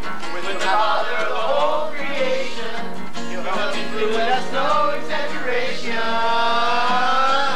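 A man sings while strumming an acoustic guitar, with a group of voices singing along.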